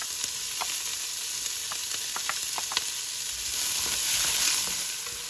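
Diced onion sizzling in hot oil in an enameled Dutch oven, with scattered small pops. About three and a half seconds in, a wooden spoon starts stirring it and the sizzle gets louder.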